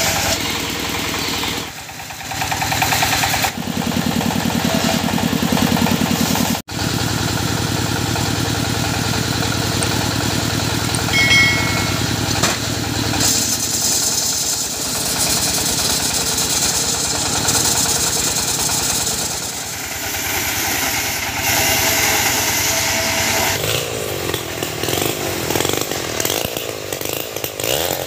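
Small engine-driven saws running in a series of short cuts: a circular saw bench cutting teak timber, then a chainsaw whose pitch rises and falls with revving near the end.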